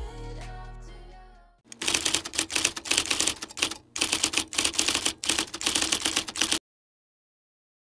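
Music fading out, then a rapid clatter of typewriter keystrokes in several quick runs for about five seconds, cut off abruptly: an edited-in typing sound effect.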